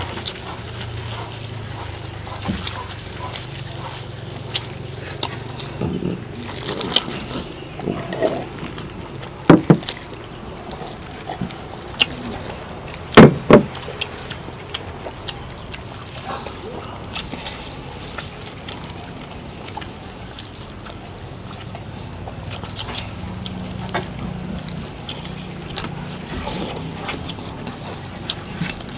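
People eating roast duck: quiet chewing and food handling, with a few sharp knocks about ten and thirteen seconds in, over a steady low hum.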